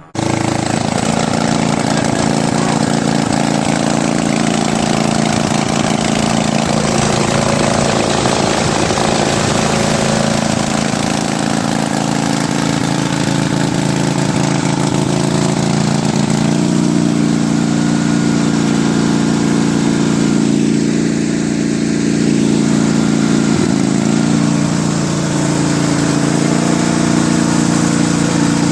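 Pulley-swapped riding lawnmower's small engine running steadily and loudly, its pitch shifting a little about halfway through and again near the end.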